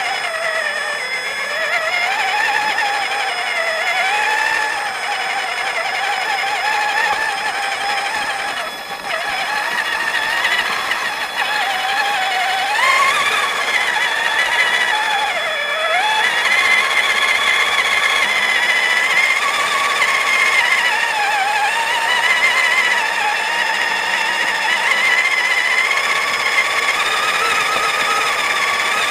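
RC truck's motor and drivetrain whining steadily while driving, the pitch wandering up and down with the throttle.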